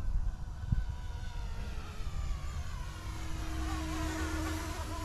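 YUXIANG F09-S RC helicopter's direct-drive brushless main rotor and tail rotor whining in fast forward flight, with the pitch shifting as it flies past around four seconds in. A low rumble runs underneath.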